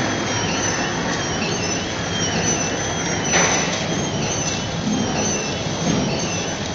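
Sweet packing machine running, its chain infeed conveyor carrying sweets: a steady mechanical clatter and hum, with a brief louder burst of noise about halfway through.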